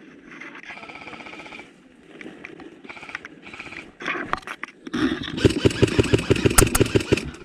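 Airsoft electric rifles firing on full auto: a fainter rapid burst about a second in, scattered single cracks, then a loud, fast rattle of shots close by for the last couple of seconds.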